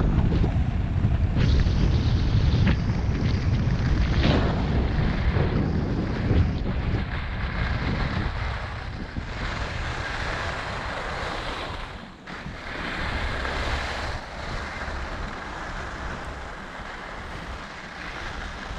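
Wind buffeting the microphone of a skier moving down a groomed run, over a steady hiss of skis sliding on packed snow. The low wind rumble is heavy for the first seven seconds or so, then eases and leaves mostly the snow hiss.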